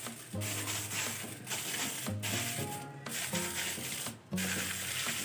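Aluminium foil crinkling and rustling as a hand presses it down over a clay cooking pot and crimps it around the rim.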